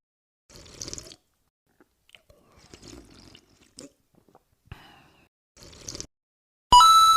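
Several short soft sips of tea, slurps spaced a second or two apart, then near the end a sudden loud ringing clink with a fast rattle.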